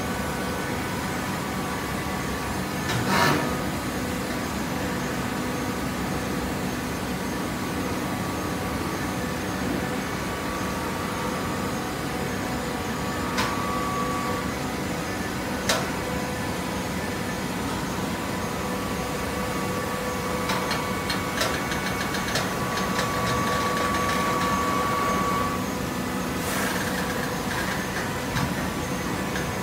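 Hydraulic baler's motor and pump running steadily with a constant whine, louder for a few seconds past the middle, with a few sharp knocks and a short run of clicks and rattles.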